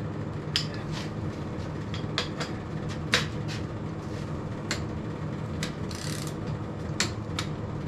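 Scattered sharp metallic clicks and ticks from a torque wrench turning a Dana 36 posi-traction carrier held on axle stubs in a vise, over a steady low hum. The carrier turns at only about 50 ft-lb, far below the roughly 90 ft-lb it should take: the limited-slip is slipping, which the owner puts down to a worn carrier surface rather than the clutches.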